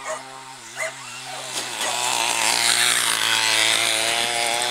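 Small engine running steadily, growing louder from about a second and a half in, with a few dog barks in the first second.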